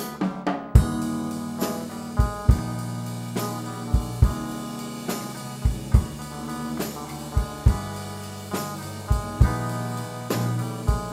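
A live rock band playing an instrumental blues passage: a drum kit keeping a steady kick-and-snare beat under electric bass and two electric guitars. After a few hits, the full band comes in about a second in.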